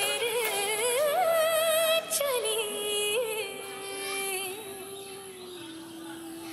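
Recorded song with a high, ornamented vocal line over music. About two seconds in, the voice settles onto one long held note that fades away as the song ends.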